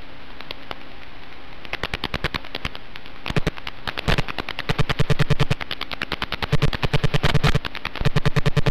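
Rapid, rhythmic electronic clicking with a buzz under it, about ten clicks a second, coming and going in stretches, with one sharper crack about four seconds in. It sounds like interference noise on the FPV wing's video-link audio.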